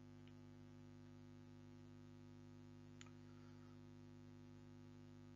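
Near silence: room tone with a faint steady hum and a single faint click about three seconds in.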